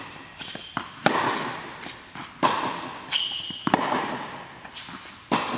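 Tennis balls struck by racket strings and bouncing on a hard indoor court, each sharp hit echoing in the hall, about one every second or so. About halfway through, a sneaker squeaks briefly on the court.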